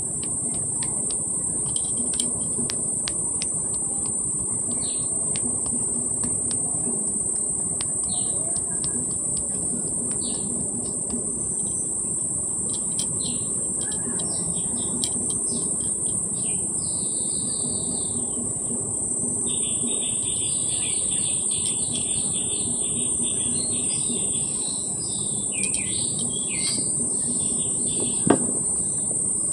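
Birds chirping over a steady high-pitched insect drone, with the chirping growing busier in the second half. One sharp click near the end.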